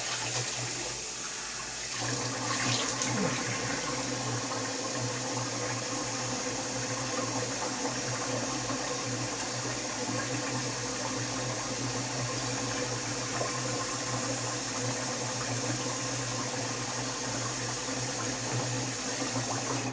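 Bathroom faucet running steadily into a sink while the face is rinsed after a shave; the flow stops abruptly near the end.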